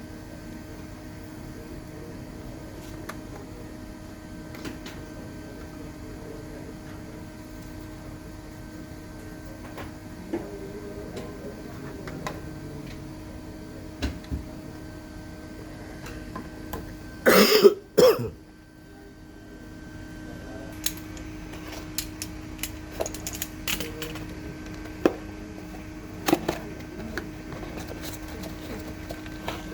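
Scattered light clicks and taps from hands working on computer parts, over a steady electrical hum. Just past halfway there is one loud, short burst, the loudest thing heard.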